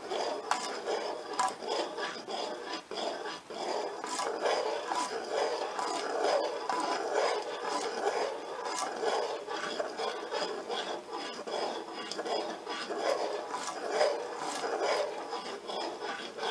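A thin metal utensil stirring thickening pepper gravy in a stainless steel saucepan, scraping and rubbing steadily against the pan with small clicks.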